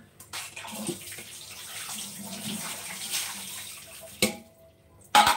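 Water running from a tap as a steady hiss, stopping about four seconds in, followed by a knock and a loud clatter near the end.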